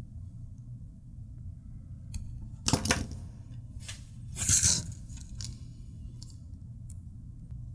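Wire cutters and a spool of solder being handled on a wooden workbench: two short handling noises, about three seconds in and about four and a half seconds in, with a few faint clicks, over a low steady hum.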